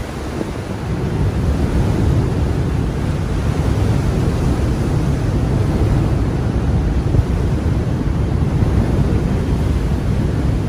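Wind buffeting the microphone over the steady rush of rough sea waves, loud and heaviest in the low rumble.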